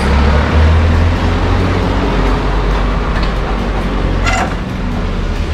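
Steady low rumble and hiss of unknown origin throughout, with a short sharp knock or clink about four seconds in as the radiator is worked up out of its mounts.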